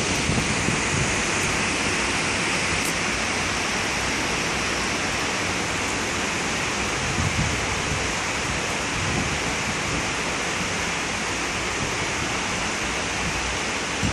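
Heavy rain pouring down in a storm, a steady even hiss with no let-up.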